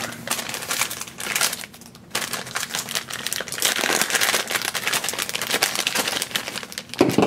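Foil blind bag crinkling as it is handled and opened. There is a short lull about two seconds in, then denser crinkling.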